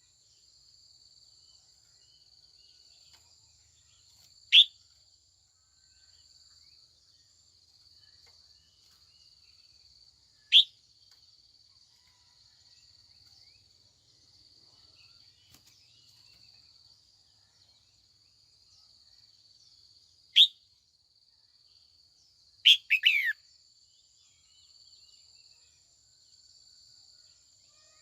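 Female red-whiskered bulbul giving loud, short calls, each a quick falling note, spaced several seconds apart, then a quick run of several falling notes about three quarters of the way through.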